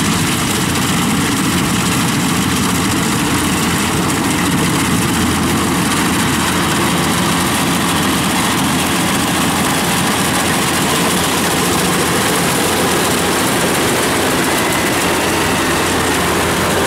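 Kubota rice combine harvester's diesel engine and threshing machinery running steadily under load as it cuts the standing rice.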